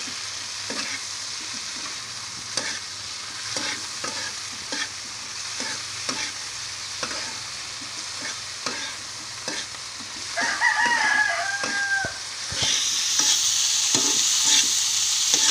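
Crickets frying and sizzling in a pan, stirred with a metal spatula that clicks and scrapes against the pan at a regular pace. About ten seconds in, a rooster crows once. The sizzle grows louder for the last few seconds.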